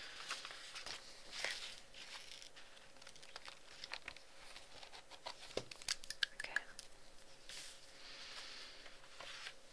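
Close-miked crinkling and crackling of something being handled, with scattered sharp clicks throughout and soft hissy patches in between.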